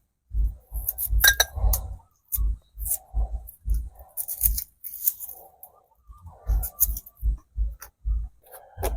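Stone mortar and pestle (cobek and ulekan) pounding a seasoning paste of shallots, garlic, chillies and spices: a steady run of dull thumps, about two a second, each with a light click, pausing briefly twice.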